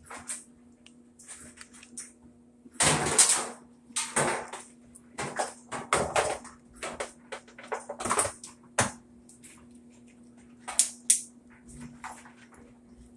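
Irregular knocks, clanks and rattles as suspension rods are handled and fitted inside the cabinet of a Whirlpool top-load washer. The loudest come about three seconds in and around eight seconds, over a faint steady hum.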